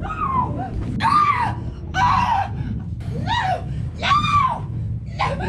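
Repeated shrill screams, about six rising-and-falling cries, roughly one a second, over a steady low rumble.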